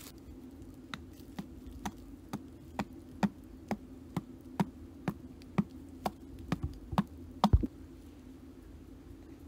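A hand-held stone pounding the ground in a steady rhythm, about two dull knocks a second, the last few the hardest; the knocks stop about three-quarters of the way through. A steady low hum runs underneath.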